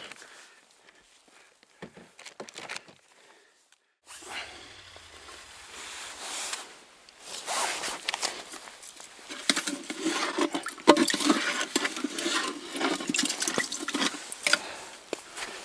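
Water sloshing and splashing with many small knocks and clicks, growing louder a few seconds in.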